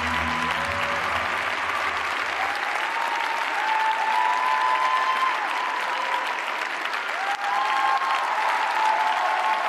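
Arena audience applauding and cheering as the last low notes of the music die away in the first couple of seconds.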